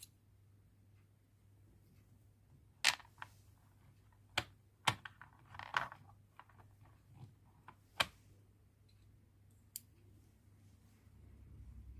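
Small precision screwdriver bits being swapped in a precision screwdriver handle: a handful of sharp clicks, with light rattling between them.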